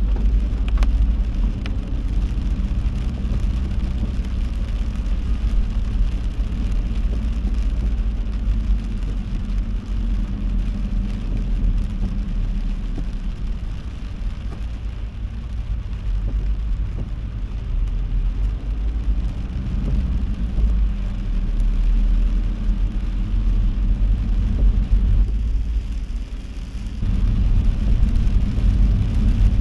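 A car driving on a wet road in heavy rain: a steady low rumble of engine and tyres under an even hiss of rain and spray, the rumble growing louder near the end.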